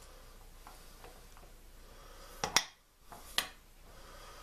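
Sharp metallic clicks from handling a magnetic indicator base and its articulating arm: two close clicks about two and a half seconds in, then a single click just under a second later.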